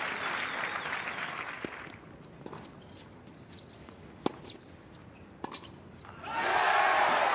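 Crowd applause dying away, then a quiet tennis point with a few sharp knocks of the ball off racket and court, and applause rising again near the end as the point is won.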